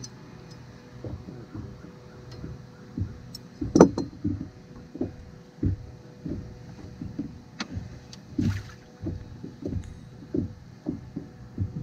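Small waves slapping against the hull of an anchored fishing boat: a run of irregular low splashes and knocks, with a sharper, louder knock about four seconds in and a faint steady hum underneath.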